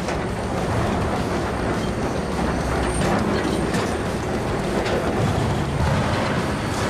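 Sawmill machinery running steadily, a dense continuous mechanical noise with a faint high-pitched whine over it.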